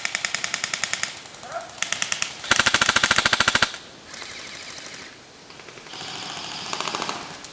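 Airsoft guns firing full-auto bursts of rapid, even clicks, about fifteen to twenty shots a second, several bursts in a row. The loudest burst comes about two and a half seconds in and lasts just over a second; the later bursts are fainter.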